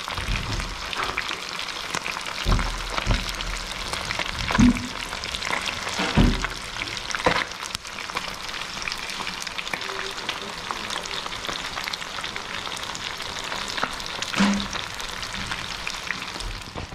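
Whole fish frying in hot oil in a wide pan: a steady sizzle with crackles and pops. A few dull low thumps come in the first half.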